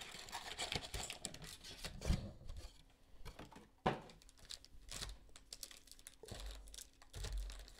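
Foil trading-card packs crinkling and tapping together as they are handled and restacked on a table, a run of small irregular clicks and rustles.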